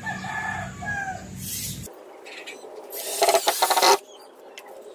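Cordless drill driving a screw into the plywood cabinet side in one loud, rasping burst of about a second, about three seconds in. Before it come a few short high-pitched sounds.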